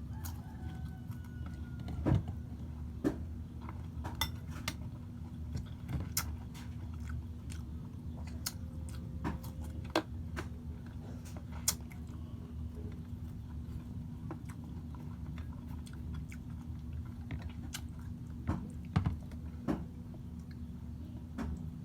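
A person chewing and biting crunchy food close to the microphone, heard as scattered sharp clicks and crunches over a steady low hum.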